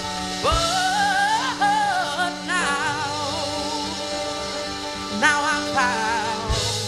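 Live gospel singing: a lead voice in wavering melismatic runs over steady held instrumental chords and low bass notes.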